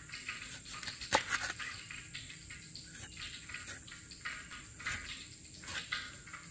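A kitchen knife scraping and cutting a catfish on a wooden cutting board: irregular rasping strokes with sharp knocks of the blade against the board, the loudest about a second in.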